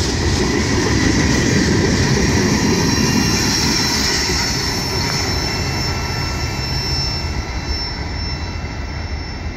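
The last cars of a freight train, tank cars, rolling along the rails in a steady rumble with thin high ringing over it. The sound fades gradually as the end of the train draws away.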